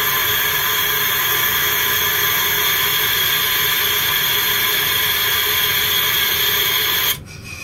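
Compressed air rushing out of the EF63 electric locomotive's brake valve exhaust as the driver's brake handle is worked during the pre-departure brake check: a loud, steady hiss that cuts off suddenly about seven seconds in.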